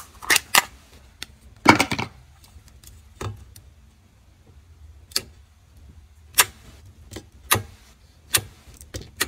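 Clear slime being poked and pressed with a finger in its plastic tub, giving a dozen or so sharp popping clicks at irregular intervals, the loudest about two seconds in.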